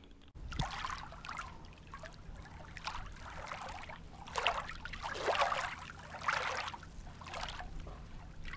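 Water splashing and trickling in irregular surges, over a steady low hum.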